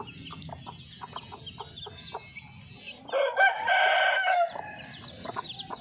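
Chickens: chicks peeping and a hen clucking as they peck, with a rooster crowing once for about a second and a half, starting about three seconds in.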